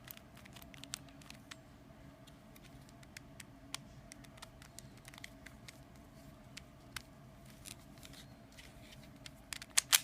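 Plastic concave cube puzzle turned by hand: scattered light clicks and scrapes of its layers, with a quick cluster of louder clicks near the end, as its corner cutting is tried out.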